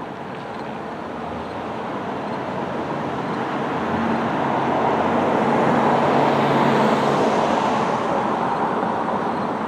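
A road vehicle passing on a nearby street, its traffic noise swelling gradually to a peak about six seconds in and then easing off.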